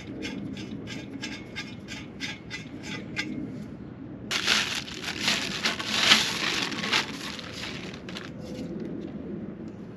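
A run of light, regular ticks, about four a second, fades out. Then a loud rustling, crinkling noise starts suddenly and lasts about four seconds.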